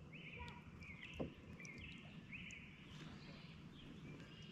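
Faint repeated high calls from an animal, about two a second, with a single soft knock about a second in.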